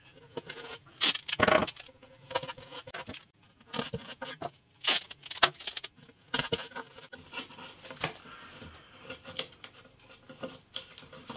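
Masking tape being torn off into short strips and pressed down by hand, a string of short, irregular tearing and rustling sounds with a few louder sharp ones.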